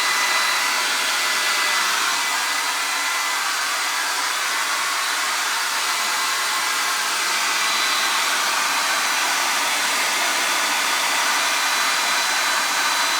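Hand-held hair dryer running steadily on one setting: a loud, even rush of air with a faint high whine from its motor and fan.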